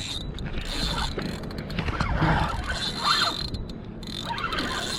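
Fishing reel being cranked, its gears and clicks ratcheting unevenly as line is wound in to check for a fish on the hook.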